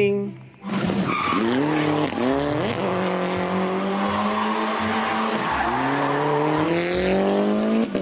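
Suzuki Swift rally car's engine revving hard: the pitch climbs in two quick pulls with drops between them, holds steady, dips at about five and a half seconds, then climbs slowly again.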